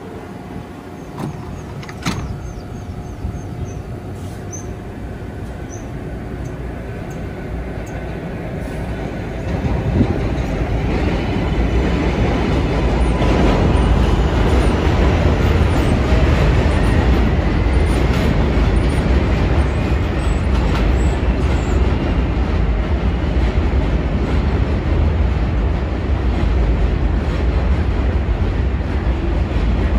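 New York City Subway L train coming closer and running by, its rumble and wheel-on-rail noise building through the first half and then staying loud, with a faint rising motor whine around the middle.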